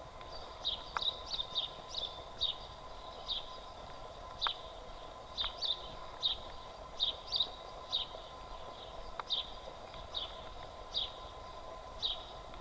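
Footsteps walking on a paved street, a short crisp scuff roughly every second, with a faint steady whine underneath.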